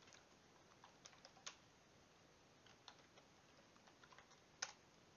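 Faint, irregular keystrokes on a computer keyboard, typing a short command, with one louder keystroke near the end.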